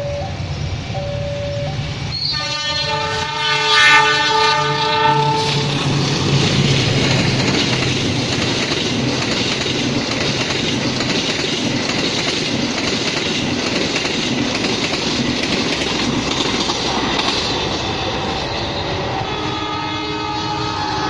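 Level-crossing warning bell pinging about once a second, then a diesel locomotive's horn sounds for about three seconds as a passenger express approaches. The train then passes at speed, a steady rumble with wheels clacking over the rail joints. Near the end a new steady multi-tone sound starts.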